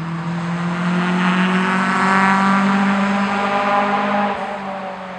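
A motor vehicle passing close by: a steady engine hum that swells to its loudest in the middle and starts to fade and drop in pitch near the end as it moves away.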